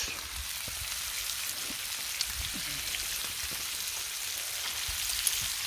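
Bacon strips sizzling on a Blackstone flat-top griddle: a steady hiss with scattered small pops and crackles.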